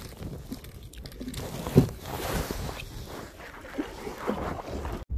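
A kayak being paddled: paddle strokes swishing in the water and jacket fabric rubbing close to the microphone, with a sharp knock about two seconds in and a few lighter knocks.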